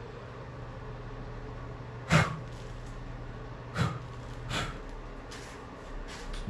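Three sharp knocks, about a second or two apart, then a few lighter clicks, over a steady low hum.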